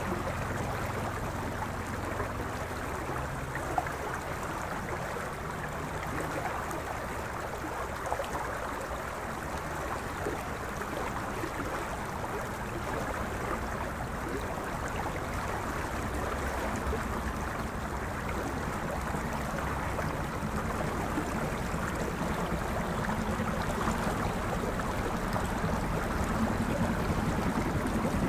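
River water flowing steadily past the bank, an even rushing. A low drone builds slowly and grows louder near the end.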